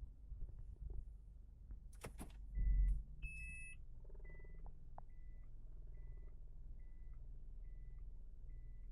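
Car's reverse warning beeper in the cabin sounding as the car goes into reverse: a single steady tone, about 0.4 s long, repeating a little more than once a second. It starts after a low clunk and a short higher two-tone beep about two and a half seconds in, over a low steady hum.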